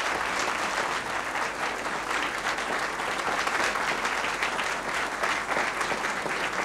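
Theatre audience applauding steadily, a dense patter of many hands clapping.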